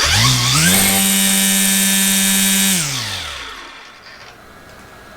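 DeWalt 60V Flexvolt string trimmer, battery-powered, run with no load on its high-speed setting. Its motor and spinning head spool up quickly into a steady whine, hold for about two seconds, then wind down to a stop once the trigger is released.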